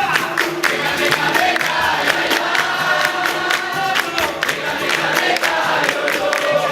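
Capoeira roda music: a group singing a chorus together over a steady beat of sharp percussion strokes.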